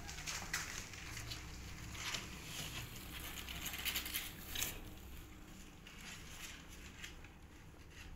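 Soft rustling and scattered small clicks as a mother cat and her newborn kittens shift about on the cardboard of their box. The clicks come thickest in the first half.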